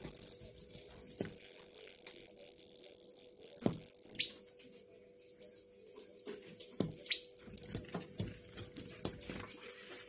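Irregular light taps and clicks of a common tailorbird pecking and hopping on a window's aluminium channel while hunting ants, with two brief high chirps that fall in pitch, about four and seven seconds in. A faint steady low hum runs underneath.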